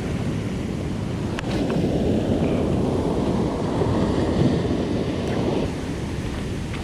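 Ocean surf washing ashore with wind rumbling on the microphone, and two faint clicks about a second and a half in.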